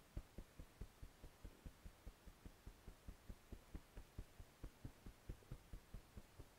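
Fingertips tapping the EFT under-arm point on the side of the ribcage through a shirt: soft, dull, even taps, about six or seven a second.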